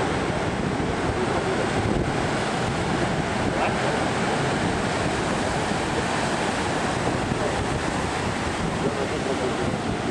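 Heavy ocean surf breaking and churning over volcanic rocks, a steady wash of crashing waves and foam with no pauses.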